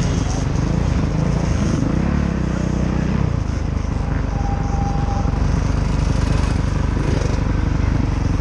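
Dirt bike engine running at low speed, with a brief rev that rises and falls about two seconds in.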